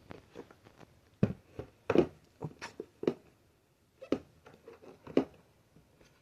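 Irregular sharp clicks and knocks of hard plastic vacuum-cleaner parts being handled and fitted together, about a dozen over several seconds. The loudest come about two seconds in and near the end.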